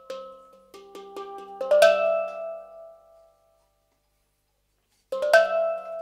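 Intro music of struck, ringing percussive notes with sharp attacks. A loud hit about two seconds in rings out and fades into nearly two seconds of silence, then a second loud hit starts the music again about five seconds in.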